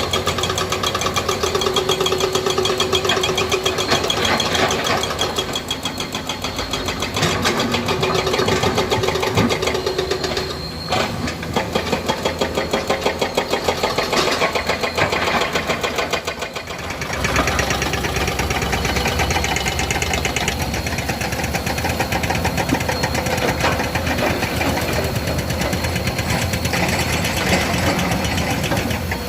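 Komatsu PC200 hydraulic excavator's diesel engine running steadily while it works, with a steady tone over the engine during the first ten seconds and a change in the engine's sound about two-thirds of the way through.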